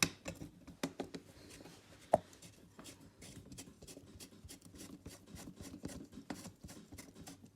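Bolt being worked into the plastic interior door-handle mounting by hand: light scraping and small clicks, with one sharp click about two seconds in.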